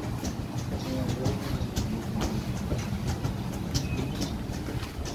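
Garment fusing machine running: a steady mechanical rumble with irregular light clicks and ticks scattered through it.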